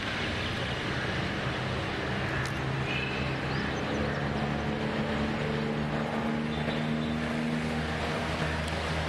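A steady engine drone with outdoor noise, its low hum holding a fairly even pitch.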